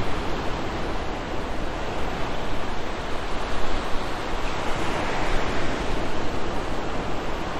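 Steady wash of breaking surf, a continuous even rush of waves.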